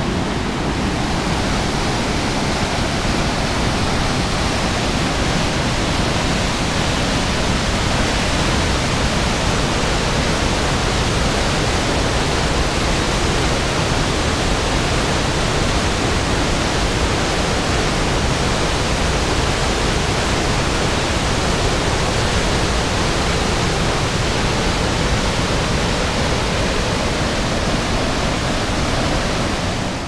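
Athabasca Falls: the Athabasca River's white water pouring over the falls and through the rock gorge, a loud, steady rushing.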